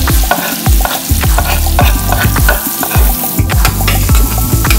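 Chopped onions sizzling in hot oil in a metal pan while a metal spoon stirs and scrapes them, with frequent clicks of the spoon against the pan.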